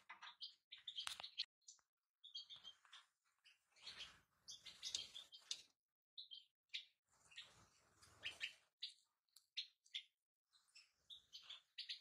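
European goldfinches chirping and twittering faintly in short, scattered bursts with brief gaps.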